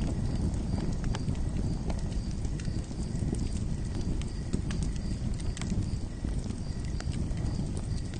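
Campfire crackling: a steady low rumble of burning wood with scattered sharp pops and snaps.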